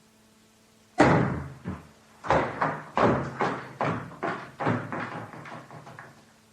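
A staged sound effect of a sudden flurry of heavy blows: a loud first impact, then about a dozen more hits in quick, uneven succession that grow weaker and stop after about five seconds.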